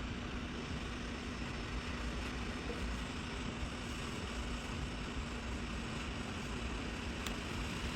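Hot-air heat gun blowing steadily, its fan giving an even rush with a faint hum. It is heating a circuit board to melt the solder on a USB port so the port can be pulled off.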